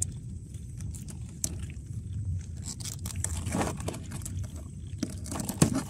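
Nylon trammel net rustling and scraping, with small crackling clicks, as a mud crab is worked free of the mesh by hand. A sharp click comes near the end, over a steady low hum.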